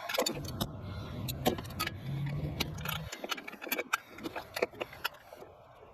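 Irregular metallic clicks and clinks of hand tools and fasteners being worked on a turbo's mounting nuts, over a low rumble that stops about three seconds in.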